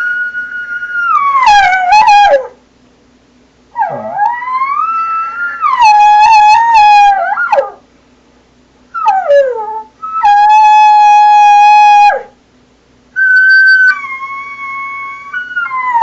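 A hunter imitating a cow elk bugle: a series of about five thin, high, whistling calls, each one to four seconds long and separated by short pauses. Most slide down in pitch at the end, one rises before falling, and one is held on a steady note. The calls are wimpy and end without the grunts or chuckles of a bull bugle.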